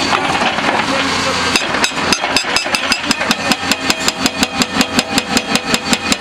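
Kato HD1430 excavator engine running, then about a second and a half in its CMB RB26 hydraulic rock breaker starts hammering on dolomite rock with a rapid, even run of blows, about five a second, over the engine.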